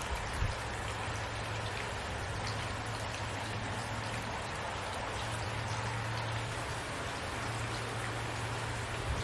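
Steady rain falling, an even hiss of rain with individual drops ticking now and then over a low steady drone.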